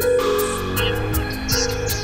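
Documentary score music: sustained tones over a fast, steady percussive beat.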